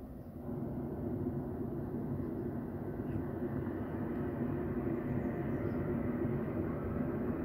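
Hot-air balloon burner firing: a steady, rushing low rumble that starts suddenly about half a second in and keeps going.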